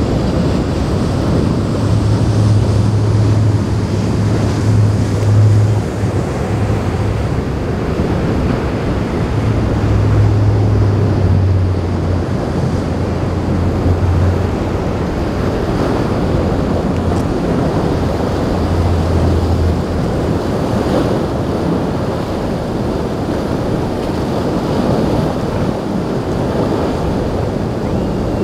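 Wind buffeting the microphone over waves and surf breaking, with a low boat-engine drone that comes and goes during the first two-thirds.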